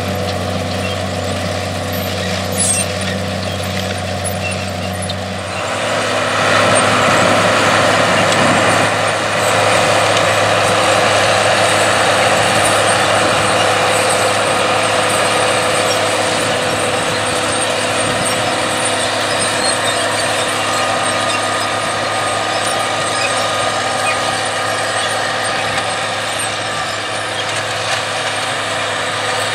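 John Deere diesel tractor engines running steadily under load, pulling corn planters. About five and a half seconds in, the sound cuts from one tractor's even low hum to a different, louder tractor with more noise across the sound.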